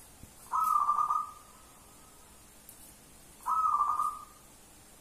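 Zebra dove (perkutut) cooing: two short coo phrases of less than a second each, about three seconds apart.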